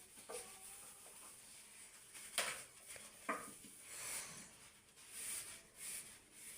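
Dishes being handled at a kitchen sink: light clinks and two sharper knocks a couple of seconds in, between softer rustling.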